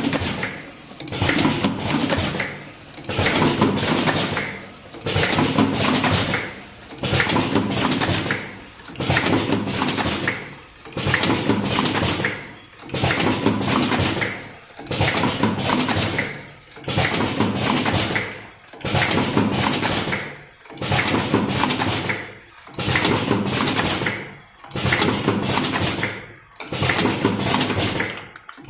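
Automatic cartoning machine running in a steady cycle: a noisy mechanical clatter that repeats about every two seconds, each stretch separated by a brief quieter dip as the machine forms and loads the next box.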